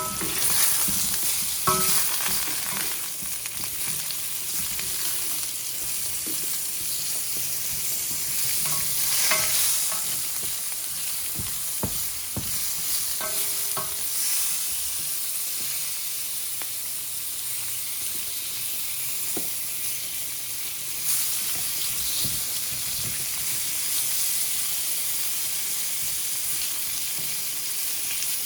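Thick-sliced beets sizzling steadily as they pan-fry in hot oil, with a wooden spatula now and then scraping and stirring them in the pan, a few times near the start and middle.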